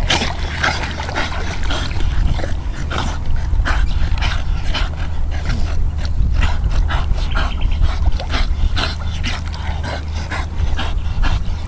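Staffordshire bull terrier whining and whimpering in many short, irregular bursts.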